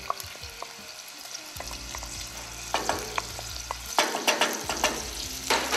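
Finely chopped onion sizzling in hot melted butter in a steel saucepan. A wooden spatula knocks and scrapes in the pan as the onion is stirred, and the sizzle swells louder now and then.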